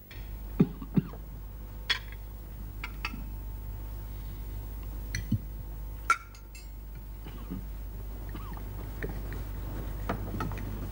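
Cutlery clinking against china plates and glasses at a dinner table: scattered light clicks and taps, with two dull knocks close together about a second in. A steady low hum sits underneath.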